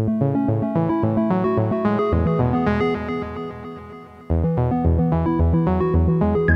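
Background music: fast synthesizer and keyboard notes over a bass line, with a new phrase starting about four seconds in.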